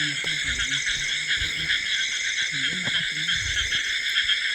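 Dense, steady night chorus of calling frogs and insects, a shrill pulsing trill, with faint low voices underneath at moments.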